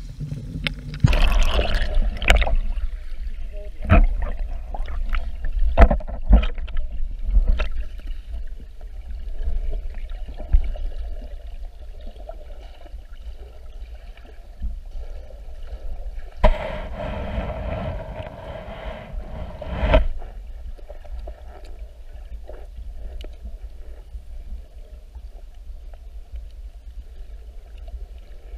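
Sea water sloshing and splashing against a GoPro's waterproof housing as it moves at and under the surface of shallow water, heard muffled through the case over a steady low rumble. Scattered knocks on the case, with two louder splashing stretches, one about a second in and one a little past halfway.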